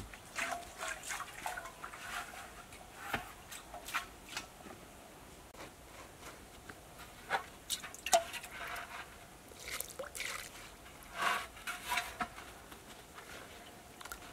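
Water from a clay pot splashing and dripping onto dry, loose soil in scattered, irregular small splashes.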